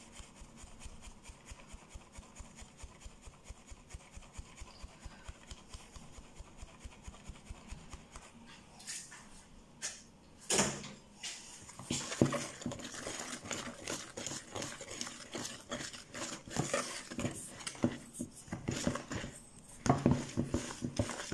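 A flour sieve shaken over a plastic mixing bowl, making an even run of soft rapid taps as the flour falls through. About halfway in there is a sharp knock, then louder irregular rustling and knocks as flour is worked into the cake mixture by hand in the bowl.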